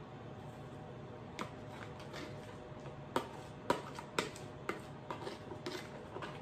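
A metal spoon scraping and knocking against a plastic bowl while scraping out melted butter: sharp, irregular clicks that start about a second in and come more often in the second half.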